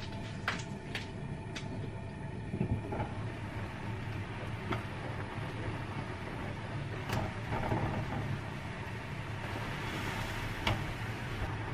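Fish fillets simmering in a shallow layer of liquid in a covered frying pan, a steady bubbling hiss over a low hum, which grows louder near the end once the pan is uncovered. Several sharp clicks of the glass lid and metal tongs against the pan are scattered through it.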